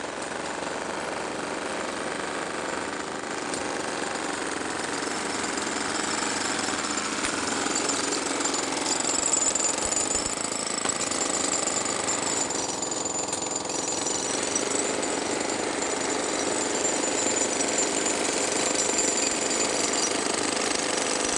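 Demolition breaker hammer pounding concrete in a rapid, steady run of blows, getting somewhat louder after the first few seconds.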